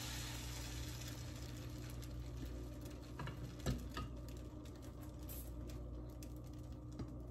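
Baghrir batter poured from a ladle into a hot frying pan, with a faint sizzle and light crackling as it cooks. A metal ladle knocks into the blender jug of batter a little over three seconds in, over a steady low hum.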